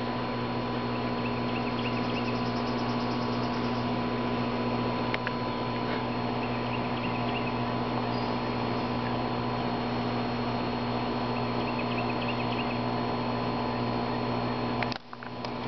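A steady hum made of several fixed tones that cuts off suddenly near the end.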